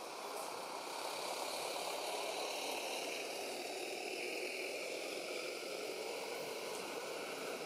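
Steady rushing background noise with no distinct events, swelling slightly in the first second or two.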